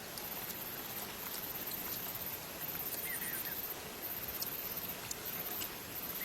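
Outdoor forest ambience: a steady hiss of rain or running water, with high insect buzzing in on-off pulses about once a second and a brief bird chirp about halfway through.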